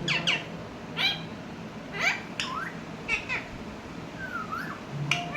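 Pet parrot calling in short, falling squawk-like notes, roughly one a second, with a rising-and-falling whistle about four seconds in.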